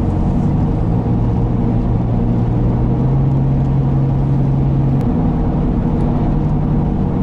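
Car engine and tyre noise heard inside the cabin while cruising on a highway: a steady drone whose pitch steps up slightly about three seconds in and drops back about two seconds later.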